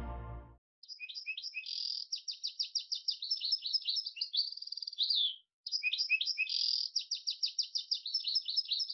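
A small finch singing two near-identical phrases of rapid, high trilled notes, each about four and a half seconds long and ending in a falling glide, with a short break between them. The tail of a chime fades out in the first half-second.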